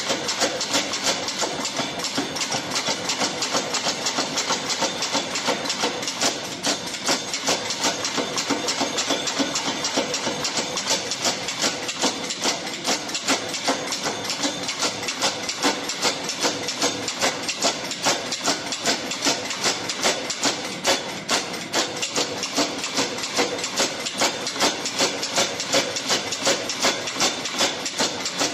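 Power hammer striking a red-hot Damascus billet with a steady, rapid series of blows, one evenly spaced strike after another.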